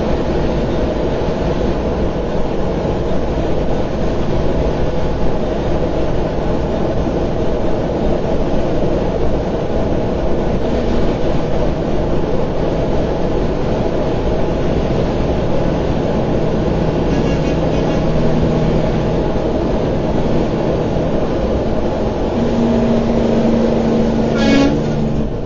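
Steady vehicle engine and road noise from a moving vehicle, running unchanged for the whole stretch. A brief pitched tone, like the start of a horn, sounds just before the end.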